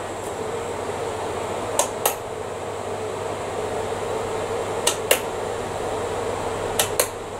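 Tecnos KI-W289 wall-mounted electric fan running with a steady whir and hum. Three pairs of sharp clicks, about two, five and seven seconds in, come from its pull-cord switches as the cords are pulled and let go.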